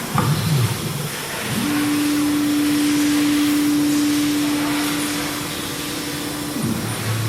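CNC router spindle spinning up to a steady whine about a second and a half in, holding one pitch, then winding down near the end. Shorter shifting motor whines from the axis drives come before and after it.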